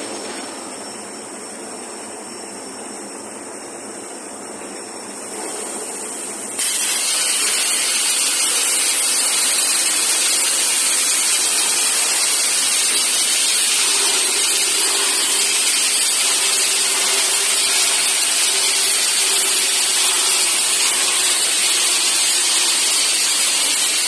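CNC beveling cutting machine's torch hissing steadily. About six and a half seconds in, a much louder hiss cuts in suddenly and holds steady.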